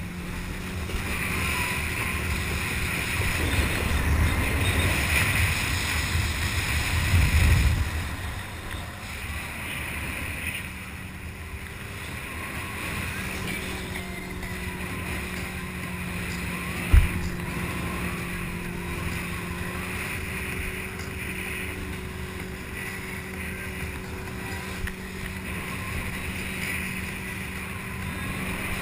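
Motorboat engine running at a steady hum, with wind buffeting the microphone and rushing water, the buffeting heaviest in the first eight seconds. A single sharp knock about 17 seconds in.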